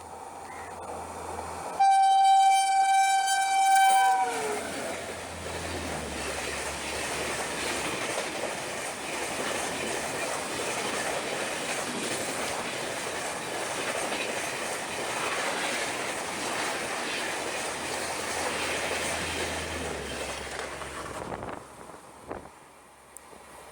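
A passing train's locomotive horn sounds for about two seconds, its pitch dropping as it ends. The train then runs past with a steady rush and clatter of wheels on rail, which dies away near the end.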